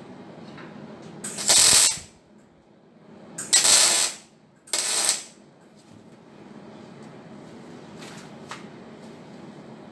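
Three short bursts of welding, each under a second long, as steel is tack-welded in place, with a steady low hum between them.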